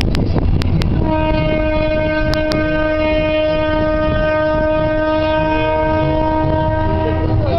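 Train horn sounding one long, steady blast that starts about a second in, over the low rumble of the moving train. A few sharp clicks come just before the horn begins.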